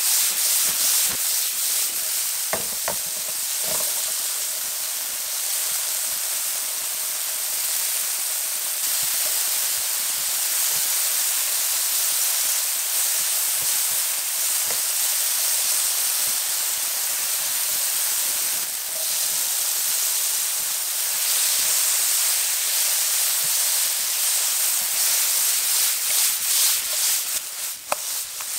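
Chopped tomatoes sizzling in hot oil in a frying pan, a steady hiss with a few light clicks near the start and again near the end.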